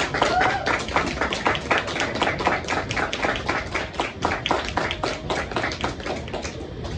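A small audience applauding with dense, irregular hand claps, and one voice cheering briefly near the start.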